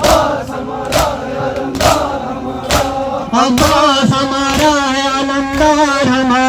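Mourners chanting a noha in unison, with rhythmic Shia chest-beating (matam) strikes falling about once a second in time with the chant.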